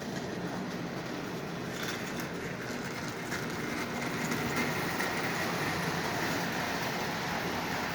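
Lionel 8410 General model locomotive running steadily around the track pulling passenger cars: a continuous rumble of wheels on rails and motor hum, growing a little louder about halfway through.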